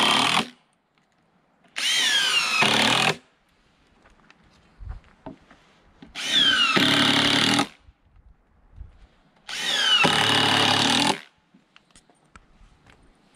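Cordless drill driver sinking 2.5-inch coated deck screws into pressure-treated lumber: three runs of about a second and a half each, with the end of a fourth just at the start. Each run has a motor whine that drops in pitch as the screw bites, with quiet gaps between them.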